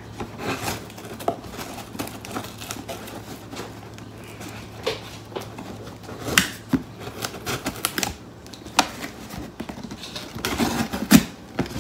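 Scissor blade slitting the packing tape along the seam of a cardboard box: an irregular run of scratchy clicks and ticks, with sharper clicks about six seconds in and near the end.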